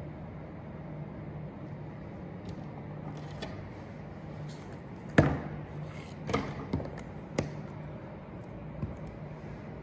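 Several sharp knocks and taps from handling things on a wooden work table, the loudest about five seconds in, over a steady low hum.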